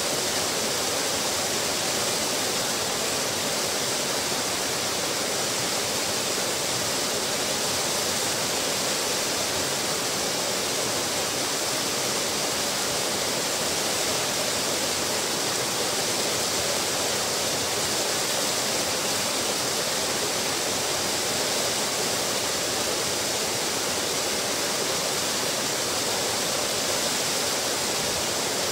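Small waterfall splashing over a stone weir into a pool below: a steady, even rush of falling water.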